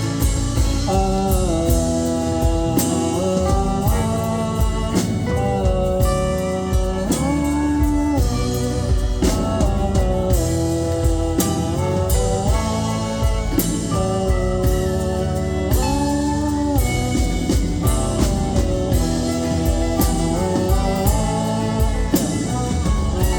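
Live band playing an instrumental break between verses of a folk-rock song: a melodic lead line, some notes gliding into pitch, over guitar and a steady drum beat.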